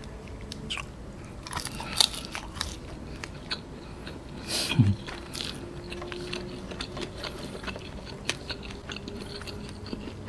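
Small scattered clicks and soft crinkles of food handling: a plastic sauce sachet being squeezed, then fingers tossing French fries in the sauce on a wooden board and picking a bunch up. A faint steady hum runs underneath.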